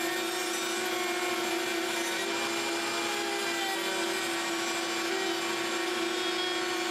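Table-mounted router running steadily as a pine board is fed past its roundover bit, with a shop vacuum running on the router cabinet's dust port.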